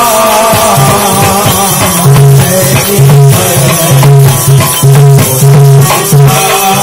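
Devotional bhajan music: harmonium holding steady chords while a low drum beat comes in, striking roughly once a second, with small brass hand cymbals (manjira) clashing along.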